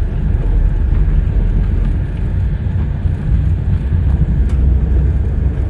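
Maruti Suzuki Alto K10 (2011) driving at a steady speed on a paved road, heard from inside the cabin: a steady low engine and tyre rumble.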